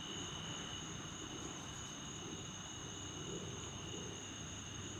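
Steady chorus of night insects trilling continuously, two high tones held without a break, over a faint low rumble.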